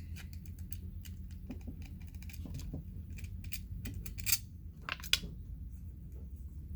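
Small clicks and handling noises from a Hohner Chrometta chromatic harmonica being handled, with two sharper clicks a little past four and five seconds in. A steady low hum runs underneath.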